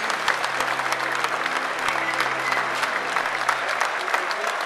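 Applause: many people clapping at once, a dense, steady run of hand claps.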